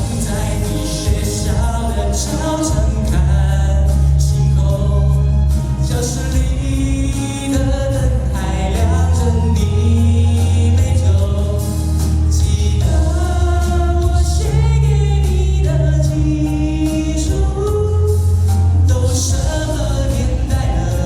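Pop ballad performed live: singing over musical accompaniment with sustained bass notes.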